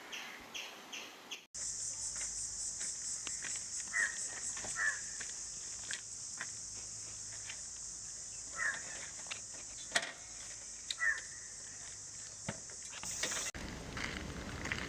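A steady, high insect drone starts abruptly about a second and a half in and cuts off suddenly near the end. A few short bird calls sound over it.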